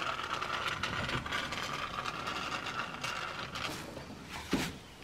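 Foam gun on a can of expanding spray foam dispensing into a gap beside a wall stud: a steady hiss and sputter that fades over the first few seconds. A couple of sharp knocks come about four and a half seconds in.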